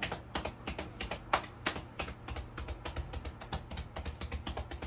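A hand patting rapidly on a person's upper back through a T-shirt, about six short pats a second in an even rhythm. This is massage patting done to make the taps carry deep into the body rather than stay at the skin.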